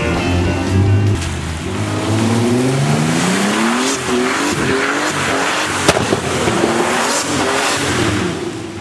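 Turbocharged Mercedes E320 engine revving hard as the car drifts on wet pavement, its pitch rising and falling. About six seconds in a sharp backfire bang, with a smaller pop just after, comes from the exhaust: the engine is running loaded up with fuel.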